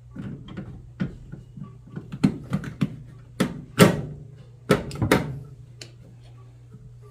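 A series of knocks, clunks and clicks from hands and tools working on a front-load washing machine, the loudest clunks around the middle, with a steady low hum underneath.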